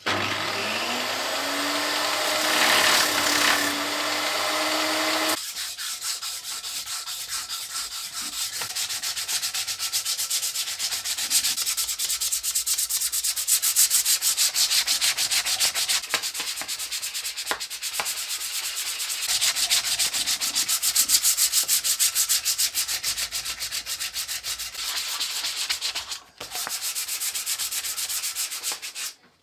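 An electric power tool's motor starting and running up to speed, then stopping abruptly about five seconds in; after that, abrasive paper rubbed rapidly back and forth around a wooden axe handle held in a vise, hand-sanding it smooth with a brief pause near the end.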